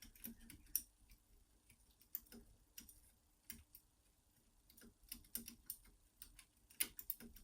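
Faint, irregular small metallic clicks and scrapes of two pick wires working inside a 5-lever mortice sash lock, one wire tensioning the bolt while the other lifts the levers. The clicks thin out briefly in the middle and come thicker near the end.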